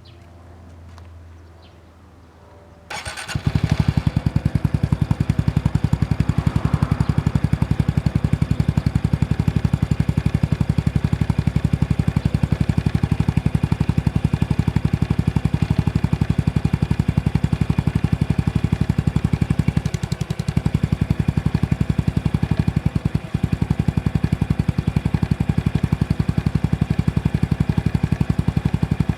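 Honda Super Cub C125's air-cooled 125 cc single-cylinder engine starting about three seconds in, then idling steadily. Its owner reports a clattering noise from the engine, worse since purchase, that tends to occur at start-up and continues at idle.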